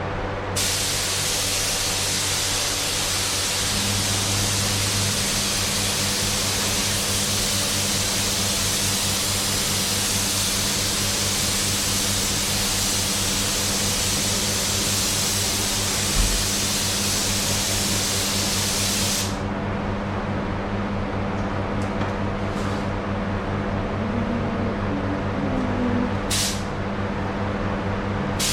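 Paint spray gun hissing as clear coat is sprayed onto a car panel: one long continuous pass that stops about two-thirds of the way in, then two short bursts near the end. A steady low hum runs underneath.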